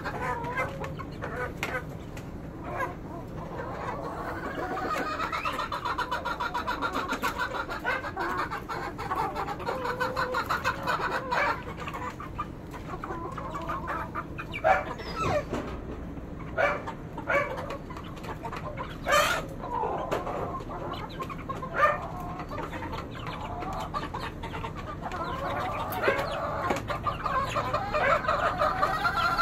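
A flock of young game chickens clucking and chirping, with trilling calls that run almost without a break. Several sharp clicks stand out through the middle.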